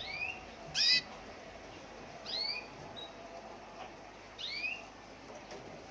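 White canary giving short call notes, four in all, each a quick rising-and-falling chirp, the loudest about a second in.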